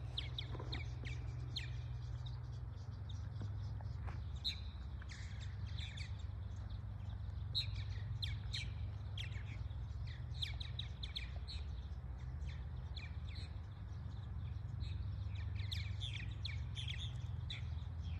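Purple martins calling around their gourd housing: many short chirps scattered throughout, over a steady low rumble.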